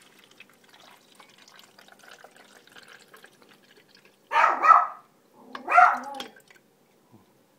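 A dog barks a few times, loud and short, starting about four seconds in. Under it is a faint trickle of water being poured from a kettle into a drip coffee maker's reservoir.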